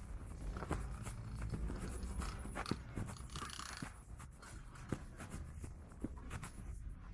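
Footsteps on hard paving, irregular sharp taps under a steady low rumble of wind and distant city noise.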